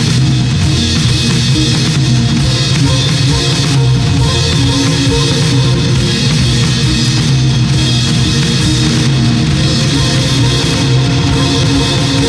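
Loud rock-leaning band music: a drum kit with bass, electric guitar and synths.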